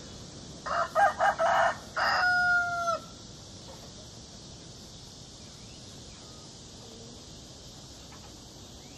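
A rooster crowing once, starting about a second in: a few short choppy notes followed by a long held note that tails off. A steady high insect chirring runs underneath.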